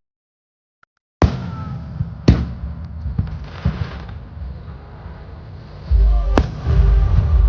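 Aerial fireworks shells bursting in sharp bangs with a deep booming rumble that grows heavier near the end, over show music. It begins after about a second of silence.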